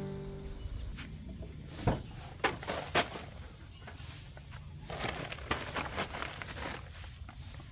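Three sharp knocks about two and three seconds in, then plastic crinkling and rustling, as gear is handled in an SUV's open cargo area. The last note of an acoustic guitar fades out at the start.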